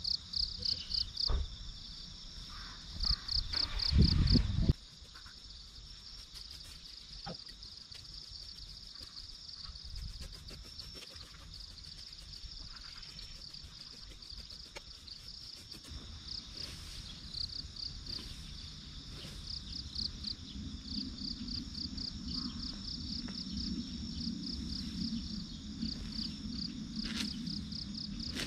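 Insects chirping in rapid, evenly repeating high-pitched pulses. About four seconds in, a loud low rumble lasts for about a second.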